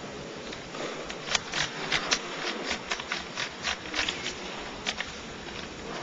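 Rubik's cube being twisted rapidly in a speedsolve: quick, irregular plastic clicks and rattles, several a second, over a steady background hiss.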